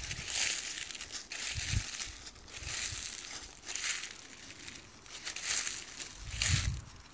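Footsteps crunching through dry fallen leaves on grass, a crunch every half second to a second, with the loudest step near the end.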